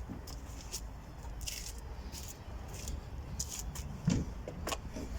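Short plastic rattles and scrapes from handling a car's door trim panel and its push-in retaining clips, several in a row, with a dull thump about four seconds in.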